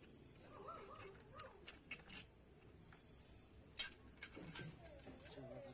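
A handful of sharp clicks or snips, bunched in the first half and two more near the end, with a child's faint voice in between.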